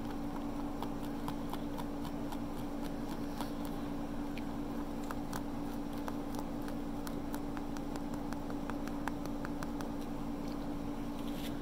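Close-up eating sounds: many small clicks and crackles from chewing and from fingers picking at a slice of stuffed-crust supreme pizza, over a steady low hum.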